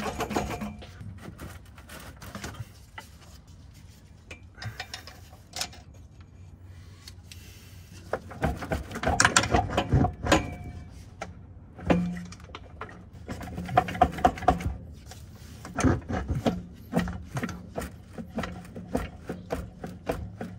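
Hand tools working on the underside of an automatic transmission: short bursts of rapid metallic clicks and knocks, busiest in the second half.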